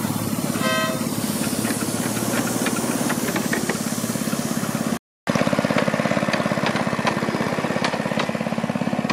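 Small petrol engine of a miniature-railway locomotive running steadily at idle, with a rapid, even beat. A brief high-pitched tone sounds about a second in, and the sound drops out for a moment near the middle.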